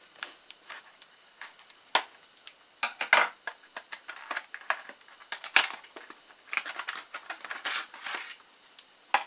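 Small cardboard SSD box being handled and opened by hand: irregular clicks, taps and short scrapes of cardboard and packaging.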